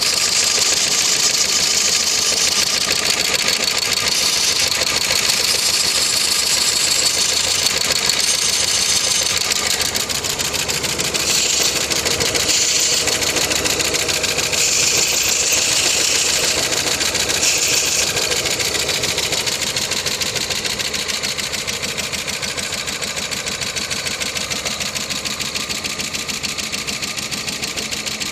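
Opel Vectra 1.8 16-valve petrol engine running with a fast, continuous mechanical knock. It was driven without oil and is likely ruined; the owner rules out the valves and puts it down to the pistons, most likely the rings.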